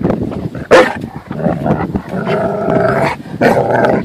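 Black Labrador retriever growling and grumbling in protest, a tantrum at being made to leave the water, with one loud short bark just under a second in and drawn-out moaning vocal sounds over the second half.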